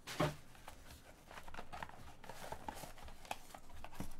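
Trading cards and their packaging being handled: a short bump near the start, then scattered light clicks and rustles.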